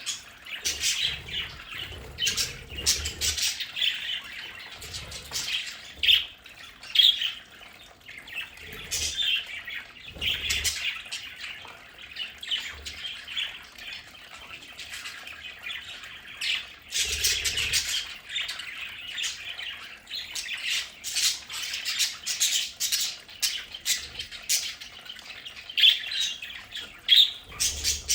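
A flock of budgerigars chattering and squawking continuously, with many short sharp calls over a steady warble.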